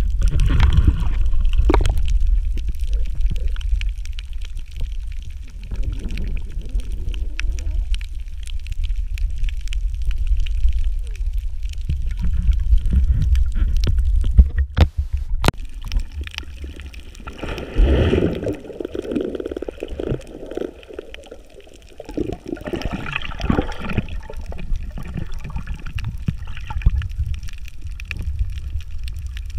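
Water heard through an underwater camera's housing: a steady low rumble of moving water, with a few louder muffled gurgling bursts.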